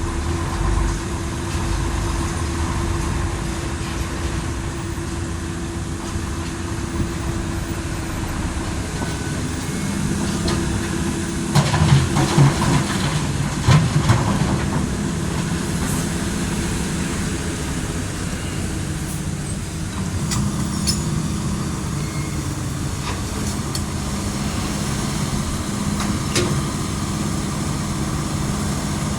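Heavy truck's diesel engine running steadily, with a louder stretch of knocks and clatter about twelve seconds in.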